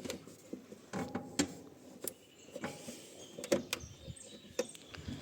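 Scattered metallic clicks and clunks, about half a dozen at irregular times, from the power take-off lever and linkage of a New Holland TL75 tractor being worked by hand with the engine off.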